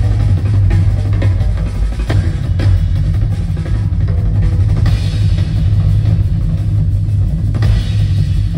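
Live concert music dominated by a drum kit: bass drum and snare hits with cymbals over a heavy, boomy low end.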